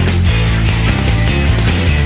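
Loud background rock music with a steady beat.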